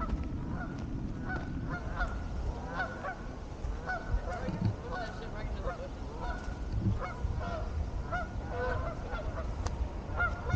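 A flock of geese honking, many short calls following one another without a break, over a low rumble.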